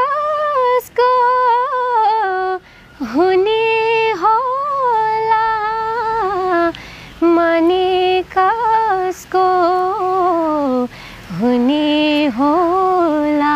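A young woman sings a Nepali song unaccompanied, in long held, gliding phrases with short breaths between them.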